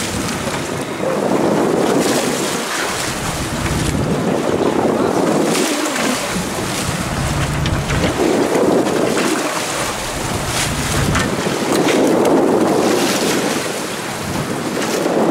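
Wind buffeting the microphone over the sea washing and splashing against the side of a fishing boat, swelling and easing in slow gusts.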